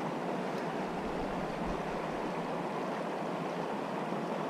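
Steady rush of a small creek's flowing water.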